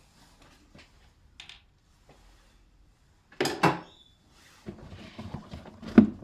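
Hard knocks and clattering of a car's radiator fan assembly being worked loose and lifted up out of the engine bay: two sharp clatters about halfway through, then a run of rattling knocks with a loud one near the end.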